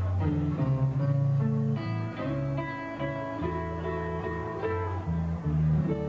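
Live blues band playing an instrumental passage: a hollow-body electric guitar playing over an electric bass line, with no singing.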